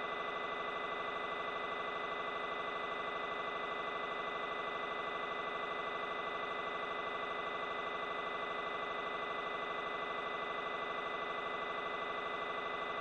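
Steady electronic buzz: one unchanging pitch with many overtones and a fast, faint flutter in its loudness.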